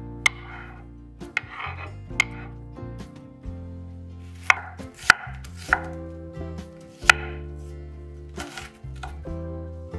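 A chef's knife slicing onion on a wooden end-grain cutting board: about eight sharp, irregularly spaced knocks of the blade on the board, with crisp crunching of the onion between them.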